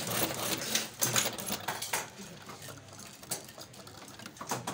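Irregular clicking and clattering of small hard objects being handled, busiest in the first two seconds and then a few scattered clicks.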